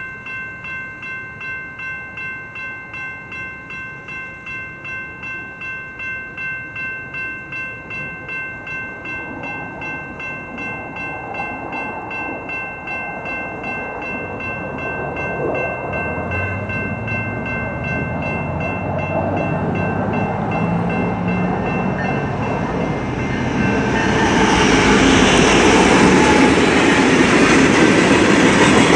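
A grade-crossing warning bell rings steadily in even pulses while a Union Pacific rock train approaches, its rumble growing louder. About 24 seconds in, the train reaches the crossing and the loud, steady rumble and wheel noise of the passing rock cars takes over, drowning the bell.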